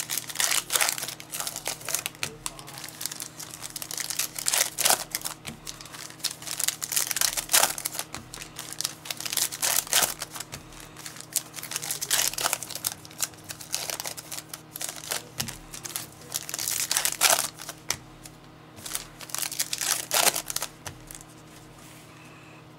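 Trading-card pack wrappers being torn open and crinkled while cards are handled, in irregular crackling bursts that stop near the end.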